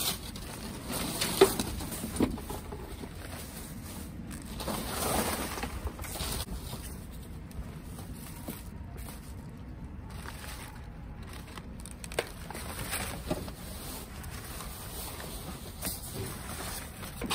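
Rummaging through dumpster contents: packaging rustling and items knocking together, with a few sharp knocks (the loudest about a second and a half in) and a longer rustle around five seconds in.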